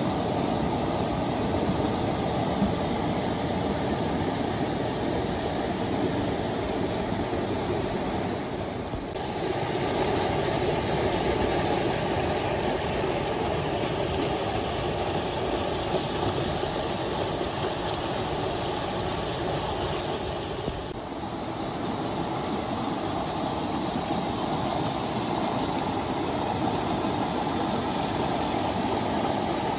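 Muddy floodwater rushing and churning over rocks and gravel in a steady rush, dipping briefly twice.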